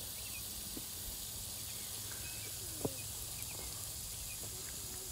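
Outdoor ambience: a steady high hiss with faint, scattered bird chirps and one sharp click about three seconds in.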